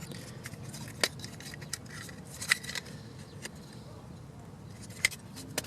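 A few sharp plastic clicks and taps as a power window switch and its door trim piece are handled and fitted, more of them near the end, over a low steady hum.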